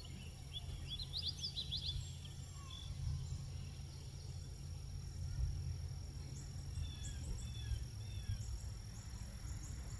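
Small birds chirping in short rising notes, a quick run of them about a second in and scattered calls later, over a steady low rumble and a faint steady high whine.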